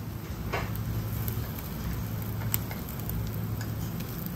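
Seafood grilling: scattered light ticks and pops from the grill, one sharper pop about two and a half seconds in, over a steady low hum.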